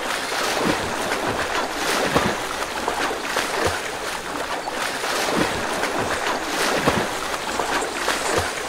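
Steady rustling and shuffling from a group of children moving about on a large sheet spread on the floor, with many small crinkles and scattered light thumps of footsteps.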